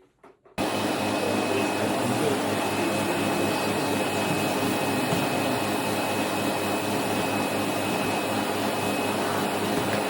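Vacuum cleaner running steadily on a carpet, with a steady high whine over its noise; it starts abruptly about half a second in. This is the pre-vacuum, the first step of a carpet deep clean.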